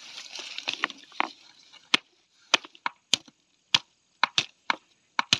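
Fish-poison plant stems being beaten to crush out their sap: about a dozen sharp, uneven knocks, often two close together.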